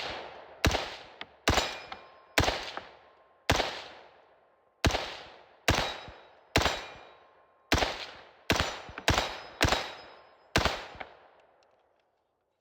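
Gun being fired repeatedly: about fourteen shots in quick, uneven succession, roughly half a second to a second apart, each trailing off with an echo. The shooting stops near the end.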